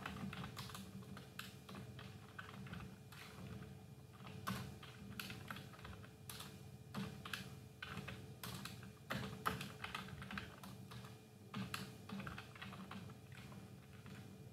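Computer keyboard being typed on: quick, irregular runs of key clicks with short pauses between them.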